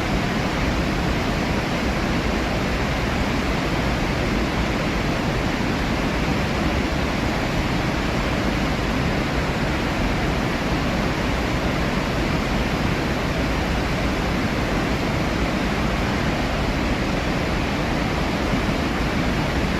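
Massive waterfall: Iguazu Falls' steady, unbroken rush of falling water, a dense even roar with no breaks.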